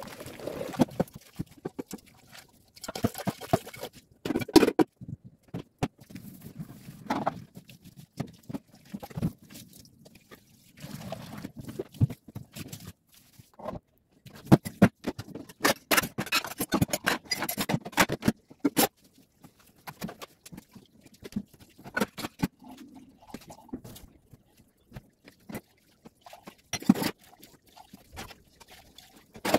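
Washing dishes by hand at a stainless-steel sink: pots, cups and utensils knocking and clinking irregularly, with the tap running at times.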